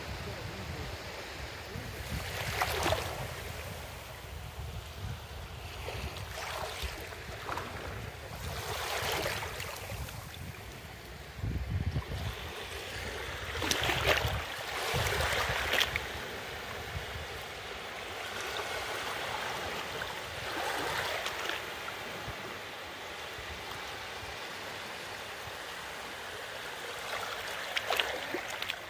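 Sea waves washing onto a beach, each wash swelling and fading, one every few seconds.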